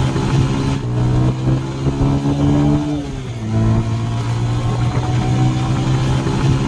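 Bajaj Pulsar 150's single-cylinder engine running hard at top speed, about 110 km/h, with wind rushing past. The engine note dips and falls briefly about three seconds in, then steadies again.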